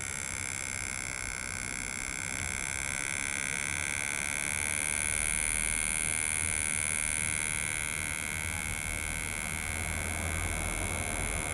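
HP laptop cooling fan running with a steady high-pitched whine made of several even tones over a low hum, a little louder in the middle. It is the fan's abnormal noise, which the owner puts down to a possible jam, the fan hitting on something.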